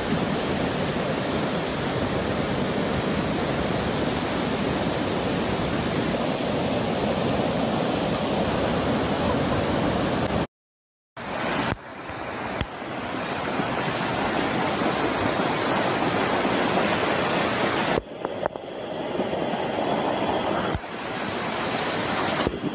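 Muddy floodwater rushing in a torrent across a road, a steady wash of water noise. It cuts to silence for a moment about halfway through, then the rushing resumes.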